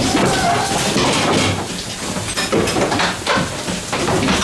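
Goat milking parlour machinery running with a steady hiss, and many irregular clatters and knocks over it.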